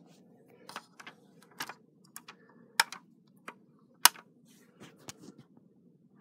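Handling noise: a dozen or so irregular light clicks and taps, the sharpest about three and four seconds in.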